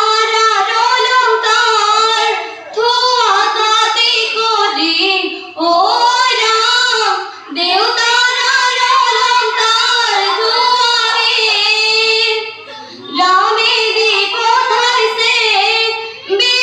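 A group of teenage girls singing an Assamese biyanaam (traditional wedding song) together in unison, in long, held, gliding phrases with short breaks for breath between them.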